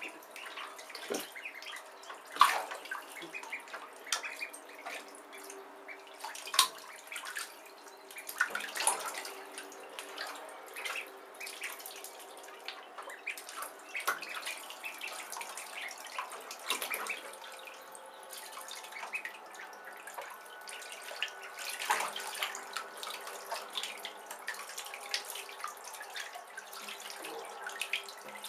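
Bathwater splashing and lapping as a group of Khaki Campbell ducklings swim and paddle in a bathtub, with many small sharp splashes scattered over a steady watery background.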